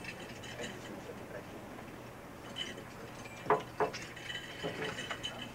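Scattered light clinks and two sharp knocks about a third of a second apart, a little after halfway, over the low murmur and shuffling of a standing congregation.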